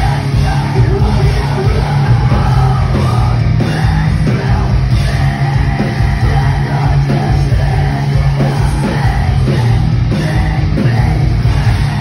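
Live rock band playing loud and heavy: distorted electric guitars and drums, with shouted vocals over the top.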